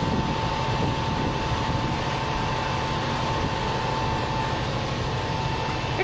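Steady low rumble of running engines, with a thin steady whine that fades out about four and a half seconds in.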